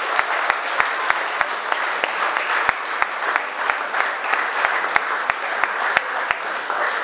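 Audience applauding, with one person clapping close by at a steady rate of about three claps a second until a little after six seconds in.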